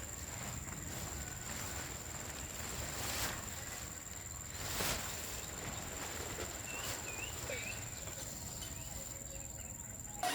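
Outdoor ambience of a tropical hillside: a steady high-pitched insect drone, over a low rumble, with a few soft knocks or steps and some faint short chirps about seven seconds in.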